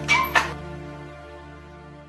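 Background music: two sharp hits just after the start, then a held chord ringing out and fading away.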